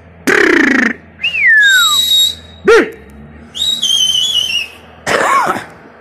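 A man whistling loudly at flying pigeons in a series of separate whistles: a falling whistle, a long steady shrill one, a short swoop and a warbling high one, with a breathy blast near the start and another near the end. This is the kind of whistling a pigeon fancier uses to drive and steer his flock in the air.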